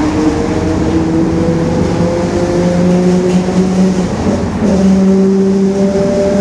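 Bus differential whining at highway speed over the low running noise of the drivetrain. The whine rises slowly in pitch, then drops and settles into a steady tone about four and a half seconds in.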